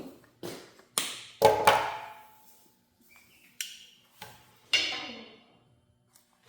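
About six sharp, irregular metal knocks, the loudest about one and a half seconds in and just before five seconds in, the later one ringing on briefly with a clear tone.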